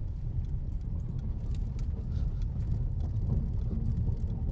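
Hyundai car rolling over ice and packed snow: a steady low rumble from the tyres and body, with scattered crunching and ticking. The driver hears these as strange sounds from the car and puts them down to driving through ice.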